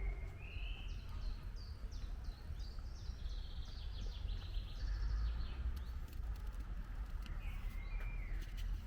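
Songbirds singing: a run of short, quickly repeated high notes in the first half, and gliding calls near the end, over a steady low rumble.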